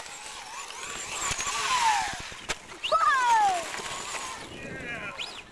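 Electric motor of a remote-control car whining at full throttle, building to a peak about two seconds in, then falling off.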